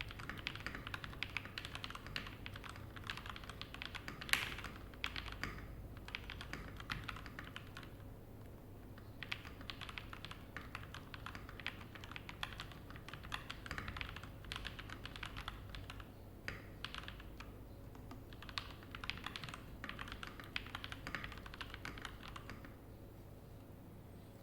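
VN66 keyboard in stock form being typed on: quick runs of many keystrokes, with short pauses about 8 and 16 seconds in and near the end, and one louder keystroke about four seconds in.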